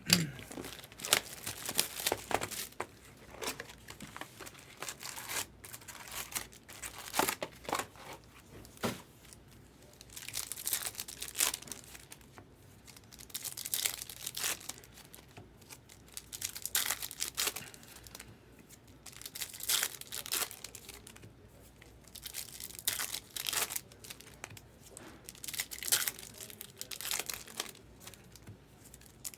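Trading-card pack wrappers being torn open and crinkled, in repeated short bursts of rustling.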